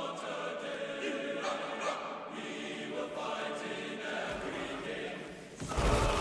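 Film score with a choir singing over held chords. Near the end a sudden loud impact, players colliding in a tackle, cuts in.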